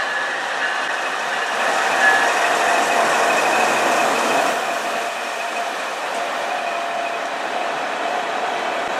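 Freight train's diesel-electric locomotives passing close by, engines running with a steady mechanical whine over steel wheels rolling on the rail.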